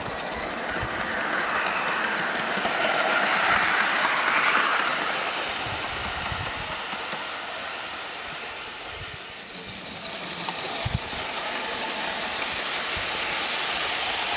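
Regner live-steam model of the Saxon VII K narrow-gauge locomotive running with its wagons along a garden-railway track: a steady hiss with scattered light knocks and rattles from the train, swelling about four seconds in.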